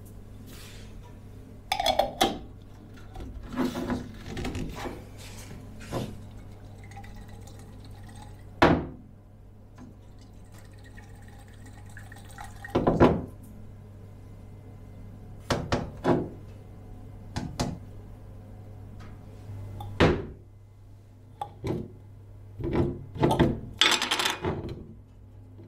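A glass jar holding liquid being handled on a wooden workbench: a dozen or so separate knocks and clinks as it is set down and picked up, with liquid sloshing inside, and a busier run of clinks and handling near the end. A steady low hum runs underneath.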